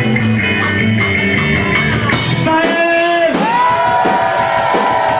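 Rock band playing live, instrumental with no singing. Bass, guitar and drums play together with steady cymbal strokes; about halfway the bass drops out, leaving guitar with bending notes over the cymbals.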